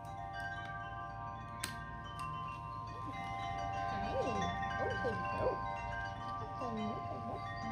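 Wind chimes ringing, several overlapping tones held and fading. Over the second half, short wavering tones slide up and down underneath.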